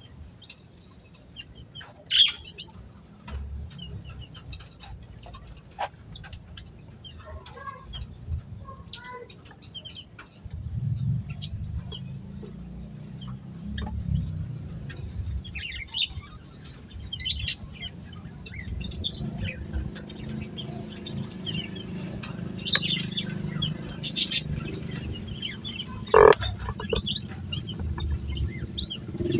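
Many small aviary birds chirping and calling in scattered short notes over a steady low rumble. There is a sharp loud click about two seconds in and another sudden loud sound near the end.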